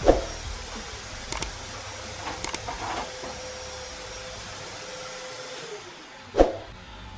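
A workshop power tool running with a steady hiss and a hum; the hum winds down and stops a little before the end. Sharp knocks just after the start and about six and a half seconds in, with lighter clicks around one and a half and two and a half seconds.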